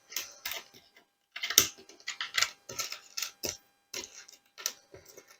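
Small wooden jigsaw puzzle pieces clicking and clacking against each other as they are handled and turned face up: about a dozen light, irregular taps, with a short pause about a second in.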